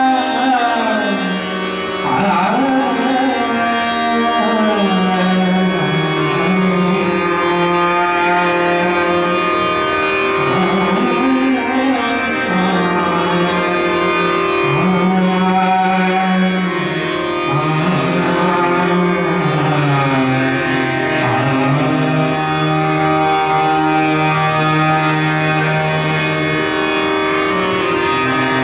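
Indian classical music: a melody that holds long notes and slides between them over a steady drone, with a few tabla strokes.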